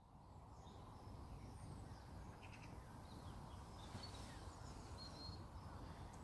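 Faint outdoor background noise with a steady low rumble and small birds chirping faintly now and then.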